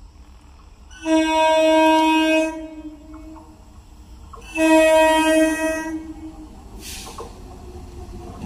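Approaching EMU local train sounding its horn in two long, steady blasts, each about a second and a half, about two seconds apart. The train's low rumble grows near the end.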